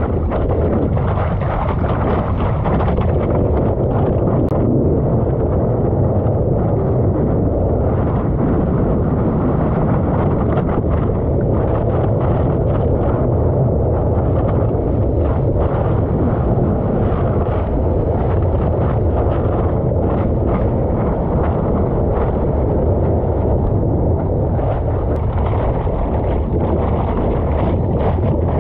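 Steady wind buffeting and rushing water on a camera mounted on the nose of a stand-up paddleboard moving over the sea, with frequent short splashes against the board.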